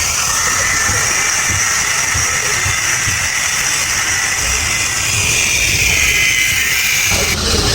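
A machine running steadily, with a low uneven rumble under a strong steady hiss; the sound changes abruptly near the end.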